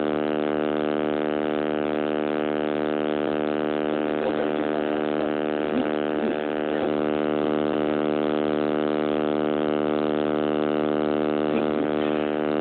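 Loud, steady electrical buzz from a damaged phone microphone: an even hum with many overtones that does not change, masking everything else.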